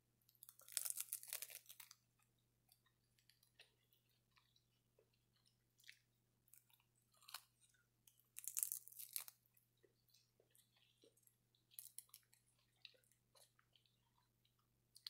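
Close-up bites and chewing of a crisp dried seaweed sheet: two loud crackly crunches, one about half a second in and another about eight seconds in, with soft scattered chewing clicks between.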